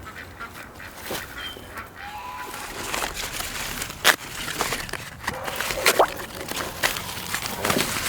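Farm poultry calling now and then, with a few sharp knocks about four and six seconds in.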